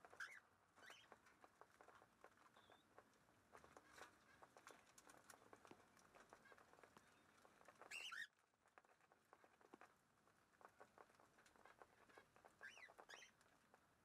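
Cockatiels pecking and cracking seed off an aviary floor: a faint, steady patter of many small clicks. A few short rising chirps from the birds cut in, one just after the start, a louder one about eight seconds in, and two near the end.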